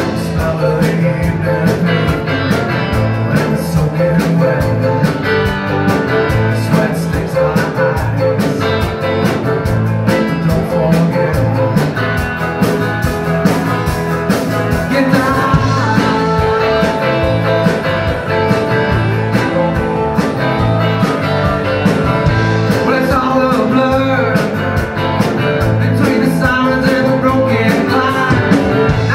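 Live band playing a song: acoustic guitar, mandolin and electric guitar over a steady drum beat.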